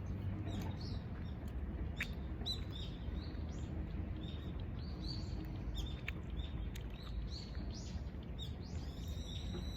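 Small birds chirping in many short, quick calls, busiest near the end, over a steady low background rumble.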